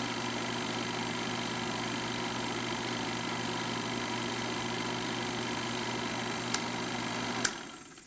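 Film projector running with a steady mechanical whirr and hum, two sharp clicks near the end, then dying away.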